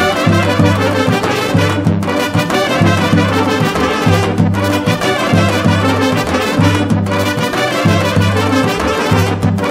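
Lively brass-led music with trumpets and trombones over a steady, bouncing bass beat.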